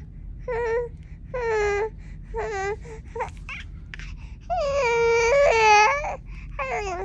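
Five-month-old baby crying and fussing in a series of short, high-pitched wails, the longest and loudest lasting over a second, about four and a half seconds in.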